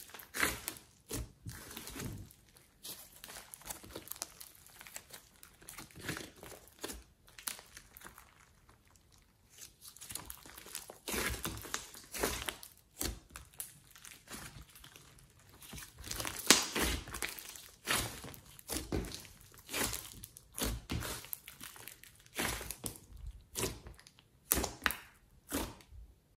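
Hands squeezing, stretching and poking a large mass of glossy slime mixed with clay and glitter: sticky squelches, crackles and soft pops in irregular bursts. There is a quieter stretch about eight seconds in.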